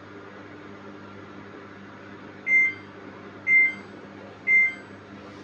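Samsung front-load washing machine beeping its error alert: short high beeps about once a second, starting about halfway in, over a steady low hum. The alarm goes with the 4E error, the machine not taking in water.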